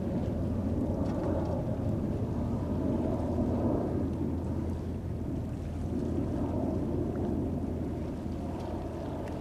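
Jet noise from a Boeing 747-400D's four turbofan engines climbing out after takeoff: a steady low rumble that swells and eases a little.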